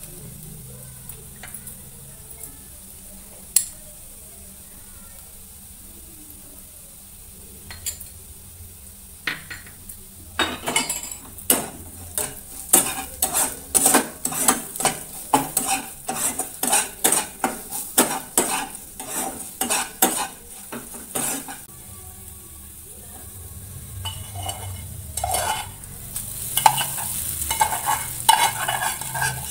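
Onions frying in oil in a wok with a steady sizzle. About a third of the way in, a spatula stirs and knocks against the pan in a run of quick strikes, about two a second, for some ten seconds. Near the end, poha (flattened rice) is poured from a steel bowl into the pan with a louder rustling.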